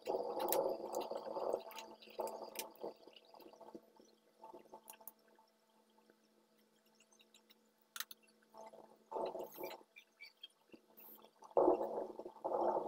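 Permanent marker being drawn along a ruler across a paper swatch card, heard as several short bursts of dull scraping strokes with pauses between, over a faint steady hum.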